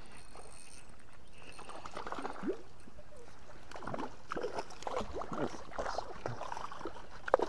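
A hooked trout thrashing and splashing at the water's surface as it is brought to the bank, with repeated irregular splashes from about two seconds in. A single sharp knock sounds near the end.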